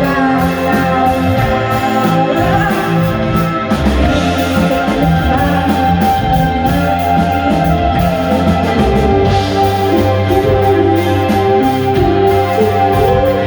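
Live rock band playing: electric guitar and sustained chords over drums keeping a steady beat.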